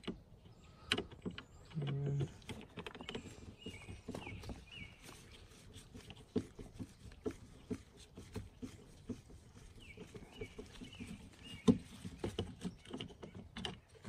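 Faint, irregular small clicks and ticks of a Phillips screwdriver turning a screw out of the plastic door-panel trim behind a car's interior door handle, with the screw being handled as it comes out.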